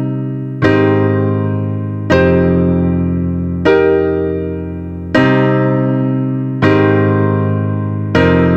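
Background piano music: slow chords, one struck about every second and a half and left to ring and fade.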